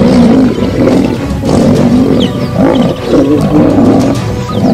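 Male lions fighting, growling and snarling in a string of about four harsh calls, one after another.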